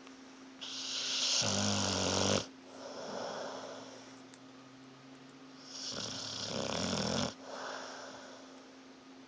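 Pit bull snoring: two loud snores, each about a second and a half long and cutting off sharply, each followed by a softer breath out.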